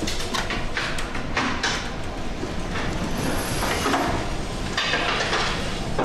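Knocking and rattling of loose objects and fittings inside a ship's bridge as the ship works in heavy seas, with brief hissing swells, over a steady low rumble.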